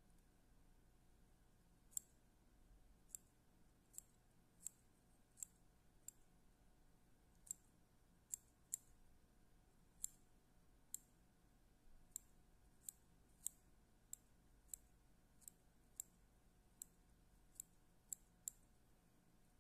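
Small fly-tying scissors snipping spun deer hair on a fly in the vise: crisp, short snips at an irregular pace of about one a second.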